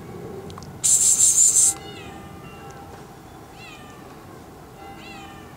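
Domestic cat stuck high in a tree, meowing three times, each meow rising and then falling in pitch. Near the start a loud burst of hissing noise lasts about a second and is the loudest thing heard.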